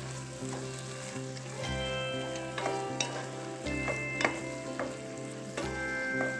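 Sliced onions, tomatoes and jalapeño chillies sizzling in hot oil in a pot while a wooden spatula stirs them, scraping and knocking against the pot. The sharpest knock comes about four seconds in.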